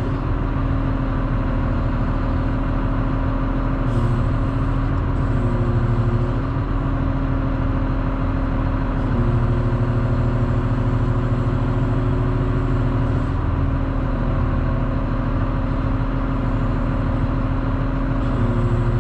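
Caterpillar 140M motor grader running, heard from inside the cab: a steady engine hum whose tone steps up and down every few seconds as the hydraulic controls move the blade.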